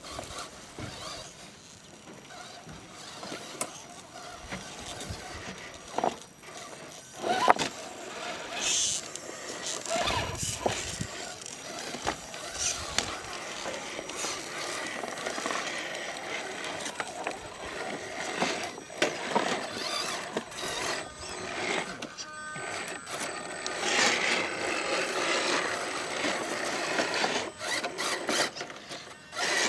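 Radio-controlled scale rock crawlers climbing over rocks: small electric motors and geared drivetrains whirring, with tyres scraping on stone and sharp knocks as the trucks bump over the rocks.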